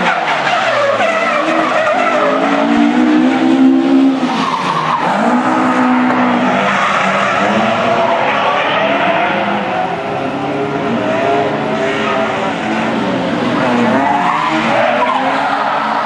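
BMW M3-engined Opel Manta drifting: the engine revs rise and fall repeatedly under the tyres' steady screech as the rear wheels spin and smoke.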